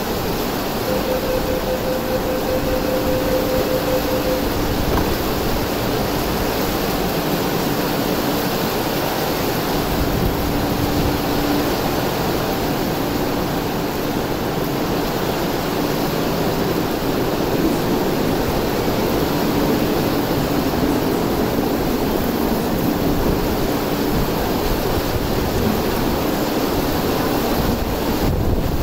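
Heavy rain pouring down on the station roof and platform, a loud, steady rushing. A faint run of rapid beeps sounds in the first few seconds as the East Rail Line train's doors close.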